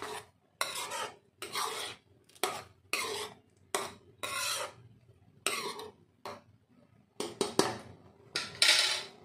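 Metal spoon stirring and scraping a thick tomato-masala paste in a kadai: a dozen or so uneven scraping strokes, the loudest near the end.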